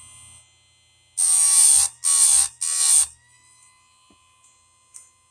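Electric chainsaw-chain sharpener grinding a cutter tooth: three short, harsh, gritty passes of the grinding wheel against the tooth about a second in, with the motor's steady whine around them. A few light clicks near the end.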